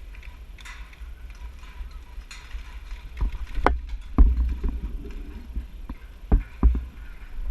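Low rumble of movement and wind against a body-worn GoPro camera, broken by a few sharp knocks, four of them in the second half.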